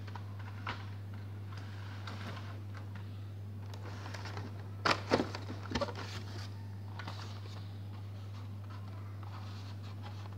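Blister-carded Hot Wheels cars being handled and slid onto a stack in a cardboard box: plastic blisters and card stock rustling and clicking, with a short cluster of louder clacks about five seconds in. A steady low hum runs underneath.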